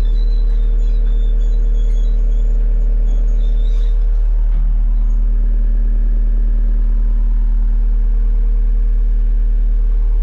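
Diesel engine of a New Holland C238 skid steer running steadily at a constant speed.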